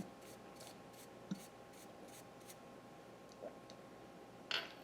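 Faint light scratching strokes, about four a second, for the first couple of seconds, then a few small clicks, over a faint steady hum.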